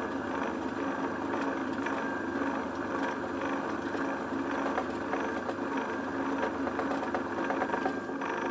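Milling machine spindle motor running steadily as a twist drill bores into a metal workpiece, the hum of the motor mixed with the noise of the bit cutting and throwing off chips.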